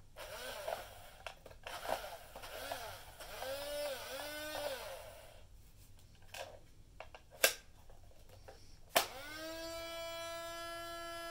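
Small electric motor of a 1970s Kodak EK6 instant camera, with handling clicks: the motor whirs briefly twice, then after two sharp clicks as the film door shuts, it spins up with a rising whine and runs on at a steady pitch. The camera is faulty and its motor would not turn off.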